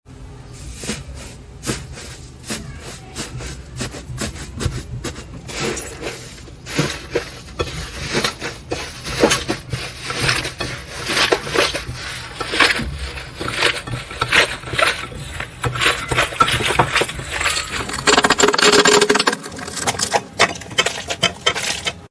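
Slime being squeezed and worked by hand, giving a dense run of small crackling pops and clicks that grows thicker and louder about eighteen seconds in.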